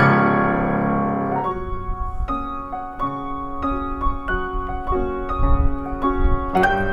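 Solo piano playing a ragtime tune: a loud chord held for about a second and a half, then a slower passage of separate notes and chords, with quick runs of notes starting again near the end.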